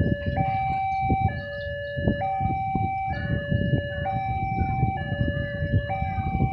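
Railway level-crossing warning alarm sounding its electronic two-tone signal, a high and a low note alternating about once a second, warning that a train is approaching.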